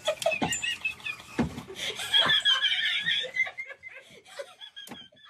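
A person laughing in quick repeated bursts, with a couple of sharp knocks, fading after about three seconds.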